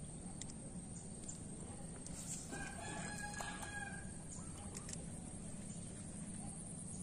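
A bird call heard once: a single drawn-out pitched call starting about two and a half seconds in and lasting about a second and a half, over a steady low background noise.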